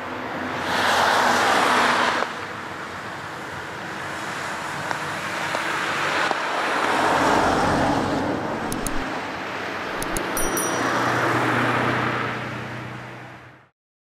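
Vehicles passing: a rushing noise that swells and dies away three times, with a few sharp ticks about ten seconds in, then fades out near the end.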